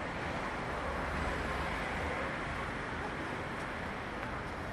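City street ambience: a steady wash of traffic noise with no single event standing out.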